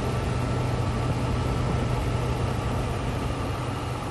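Mercedes-Benz W140 S600's M120 V12 engine idling steadily. It is still misfiring, which the owner puts down to the cracked air intake tubes that have not yet been replaced.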